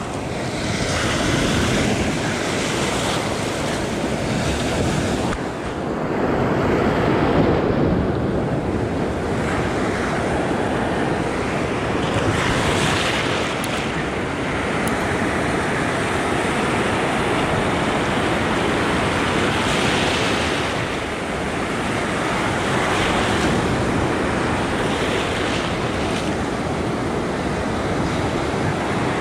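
Shallow beach surf washing and breaking, swelling and easing every few seconds, with wind buffeting the microphone.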